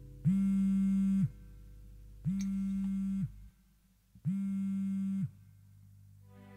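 Phone call tone: four long electronic beeps, each about a second long, one every two seconds, over a soft held music pad.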